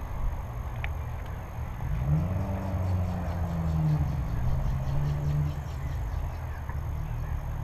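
A motor hums for a few seconds in the middle, shifting up and down in pitch, over a steady low rumble.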